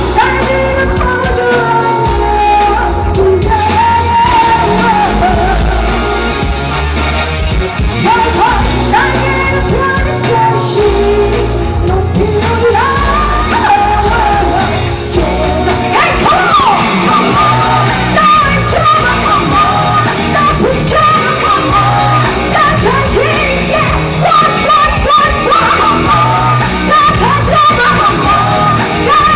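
Live pop-rock band playing at full volume with drums and bass under a singing voice, with a long held high line through the second half.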